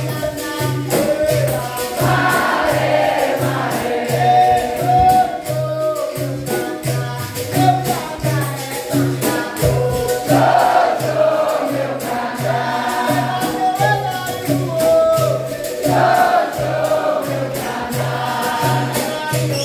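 Capoeira roda music: berimbaus and a pandeiro keep a steady rhythm, with a low beat about twice a second, while the circle sings in chorus.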